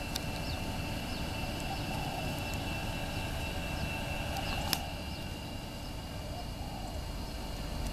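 Outdoor pond-side ambience: a steady low rumble and a steady high whine, with birds calling now and then. A single sharp click comes a little past halfway.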